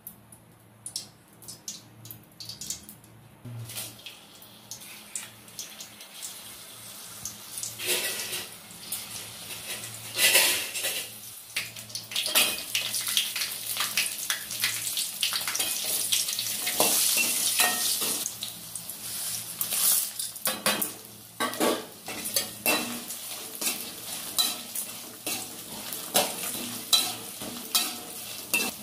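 Dried red chillies and coconut pieces frying in hot oil in a stainless steel kadai, while a steel ladle scrapes and clinks against the pan as they are stirred. The sizzle grows louder about eight seconds in.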